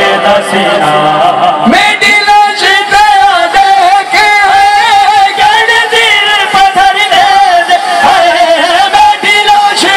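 A man chanting a noha, a Shia lament, into a microphone. He holds long, wavering notes, and the solo line comes in strongly about two seconds in.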